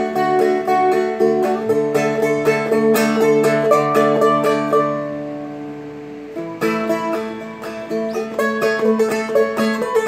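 Seagull Merlin M4, a four-string fretted dulcimer-style instrument, played claw hammer style: quick plucked melody notes over ringing drone strings. About halfway through, a chord is left ringing and fades for a couple of seconds before the picking starts again.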